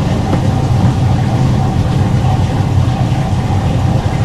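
Loud, steady low mechanical drone, like an engine or motor running, with a faint higher hum over it and no change throughout.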